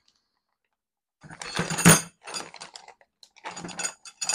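After about a second of silence, a bag is opened and handled, and steel ground spikes clink and jangle together as they are taken out.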